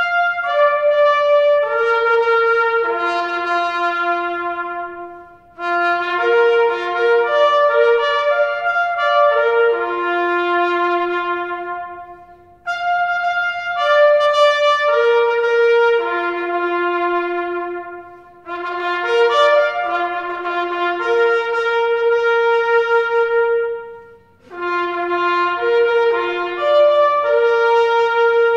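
Background music: a slow solo melody played one note at a time, in phrases of about five seconds with short breaks between them.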